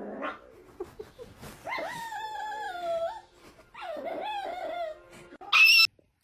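A dog whining in two long, wavering, drawn-out calls that slide down slightly in pitch, followed near the end by one short, sharp, high-pitched yelp or squeak.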